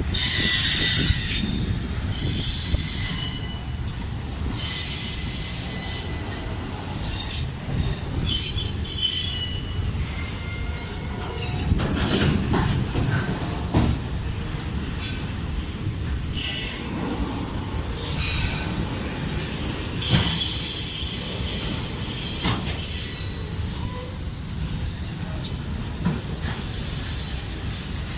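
Freight cars of a manifest train rolling past with a steady low rumble, intermittent high-pitched wheel squeal, and scattered clicks of wheels over the rail joints.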